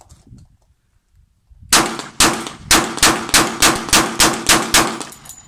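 Glock 20 pistol firing 10mm Auto rounds: about ten loud shots in quick succession, roughly three a second, starting after a short pause.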